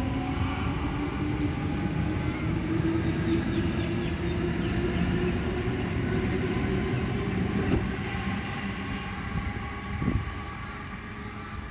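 Sydney Trains double-deck electric train pulling out and accelerating, its traction motors whining in a pitch that rises slowly over the rumble of wheels on rail. A couple of knocks come late on as it clears.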